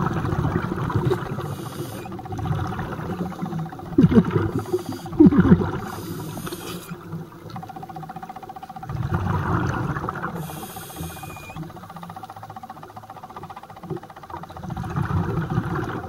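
Scuba regulator breathing heard underwater: hissing inhalations alternating with rumbling bursts of exhaled bubbles. A few short wavering squeaks come about four to five and a half seconds in, the loudest sound here.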